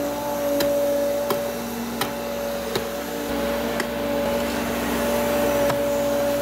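Menzi Muck M545 walking excavator running, a steady mechanical whine from its engine and hydraulics, with short sharp clicks about once a second.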